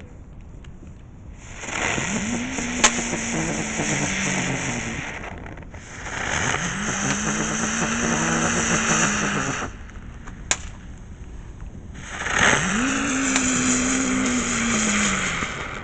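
Ground fireworks going off in three spurts of a few seconds each. Each spurt is a loud hiss of spraying sparks over a low buzzing tone that rises as it starts, with a few sharp cracks in between.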